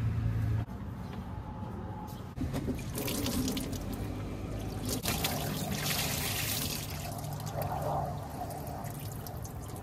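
Green engine coolant pouring in a stream from a radiator hose into a plastic drain pan, splashing and frothing on the pooled coolant. The flow sounds heaviest in the middle few seconds.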